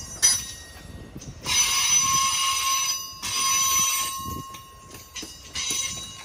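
Passing train's wheels squealing against the rails: high-pitched screeching in several bursts, each about a second to a second and a half long, over the low rumble of the train.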